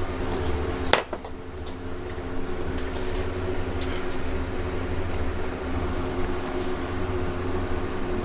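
Steady machine hum with a low rumble and a couple of held tones, broken by one sharp click about a second in.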